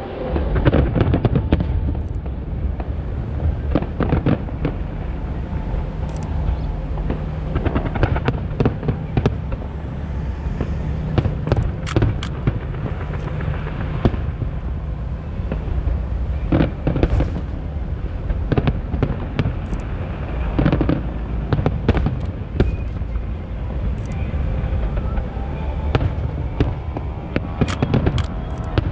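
Aerial fireworks shells bursting one after another, many sharp bangs at irregular intervals over a continuous low rumble.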